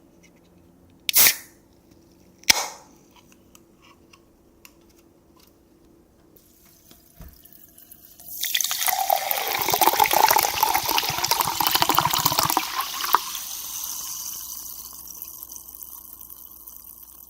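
A carbonated soda is opened with two short, sharp cracks a little over a second apart. After a pause it is poured over ice in a glass for about four seconds, then fizzes, the fizz slowly fading.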